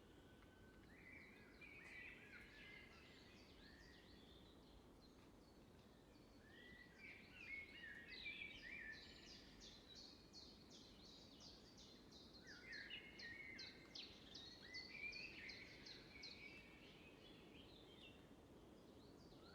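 Faint birdsong: small birds chirping and twittering in scattered bursts, with a quick run of repeated chirps through the middle, over a low steady hiss.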